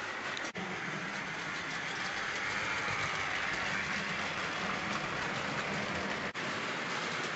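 Tri-ang model freight train running on the layout's track: a steady running noise of wheels and motor, a little louder from about two seconds in, with two momentary drop-outs.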